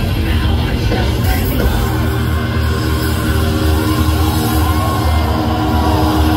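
A live heavy metal band playing loud over a concert PA: distorted electric guitars, bass and pounding drums, with some gliding guitar pitches in the middle, heard from the audience.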